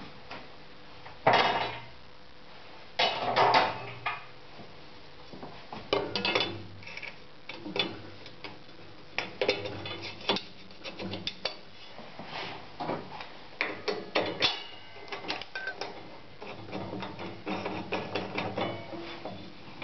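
Pneumatic grinder for carbide-tipped circular saw blades working through its cycle: a long run of mechanical clicks and knocks, with two louder rushing bursts early on. Near the end the clicks come quicker and more evenly.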